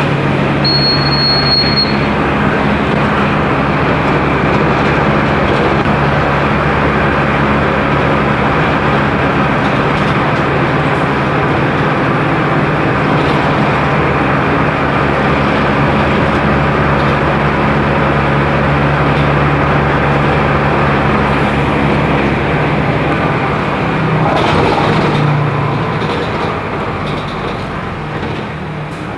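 Mercedes-Benz OF-1418 bus's six-cylinder diesel running at a steady engine speed, with road and body noise. About 25 seconds in the engine note shifts, and then the sound dies away gradually as the bus slows. A brief high beep sounds about a second in.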